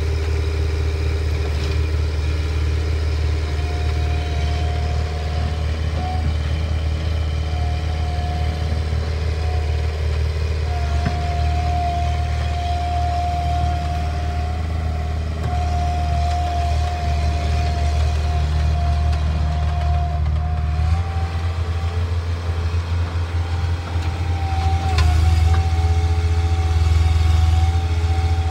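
Bobcat 753 skid steer loader's diesel engine running steadily, with a thin steady whine above the engine note. About two-thirds of the way through the engine note shifts, and it grows louder near the end.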